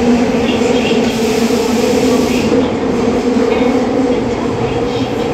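Tokyo Metro 8000 series subway train running at a steady speed through a tunnel, heard from inside the car: a continuous rumble of wheels on rail with a steady motor hum.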